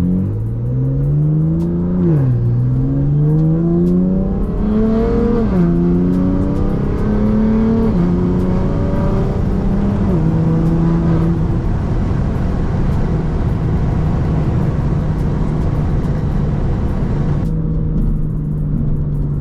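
BMW F80 M3's S55 twin-turbo inline-six with a Valvetronic equal-length exhaust accelerating through the gears. The engine note climbs and drops sharply at each quick dual-clutch upshift, four times in about ten seconds, then holds steady at cruise.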